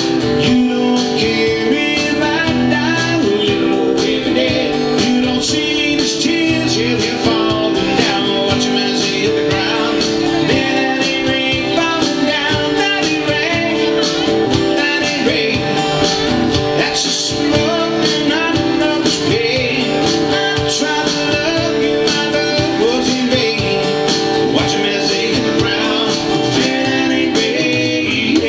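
Live song: a guitar strummed steadily, with a man singing over it in places.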